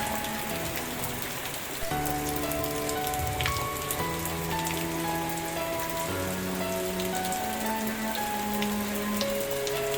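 Steady rain falling, with many small drops ticking sharply on a hard surface, over soft sustained music chords that change about every two seconds.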